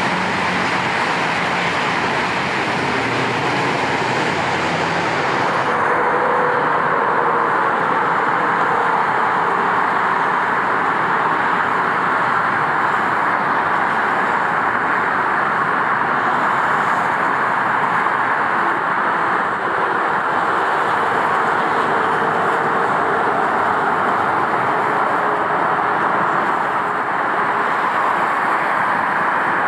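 Siemens P2000 light rail train running, heard over steady freeway traffic noise. The sound is loud and even throughout, and its top end dulls abruptly about six seconds in.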